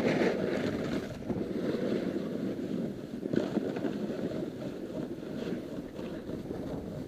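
Snowboard sliding and carving over snow, a continuous scraping rumble that swells and eases with the turns, mixed with wind buffeting the action camera's microphone.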